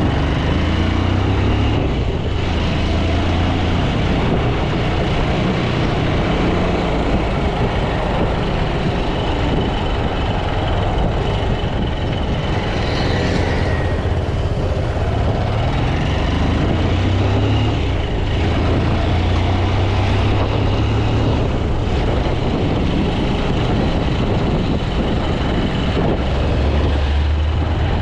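Single-cylinder engine of a 2008 Bajaj Pulsar 200 motorcycle running while riding, its pitch rising and falling with throttle and speed, over a steady rush of road and traffic noise.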